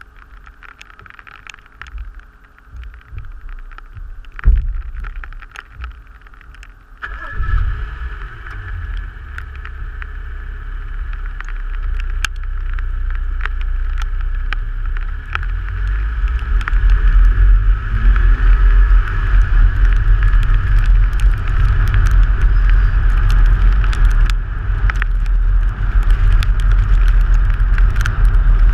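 Rally car on a special stage: a few knocks in a quieter first stretch, then the car's running sound comes in suddenly about seven seconds in, with a deep rumble, and grows louder as the car gathers speed, the engine note rising in short sweeps.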